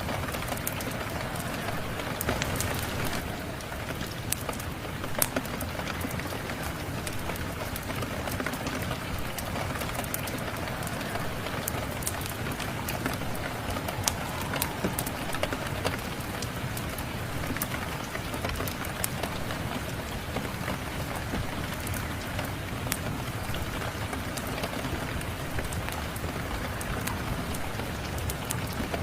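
Steady rain falling, mixed with the crackling and popping of a wood fire in a fireplace: a constant hiss of rain with frequent sharp little cracks, a couple of them louder.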